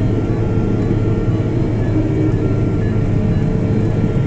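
Ponsse Cobra harvester's diesel engine running steadily under load as it drives through deep snow with its differential locks engaged, heard from inside the cab.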